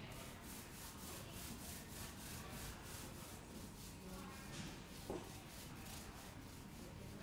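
Rhythmic back-and-forth rubbing of a hand tool against a partition wall, about three strokes a second, with a brief squeak about five seconds in.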